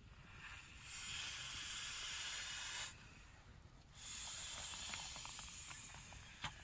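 Air blown by mouth into inflatable camping pillows: two long, steady rushes of breath, each lasting about two seconds. A sharp click comes near the end.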